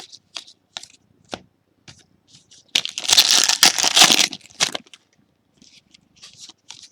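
Foil wrapper of a trading card pack crinkling and crumpling loudly for about two seconds, a little under halfway in, with light clicks and taps of cards being handled before and after.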